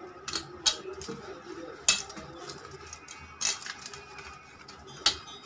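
Bangles clinking and hands tapping a steel plate while dough is rolled into balls by hand: about five short, sharp clinks, the loudest about two seconds in and near the end.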